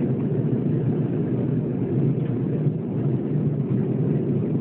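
Airbus A320 cabin noise during the climb after takeoff: a steady, low rush of engine and airflow noise heard from a seat over the wing.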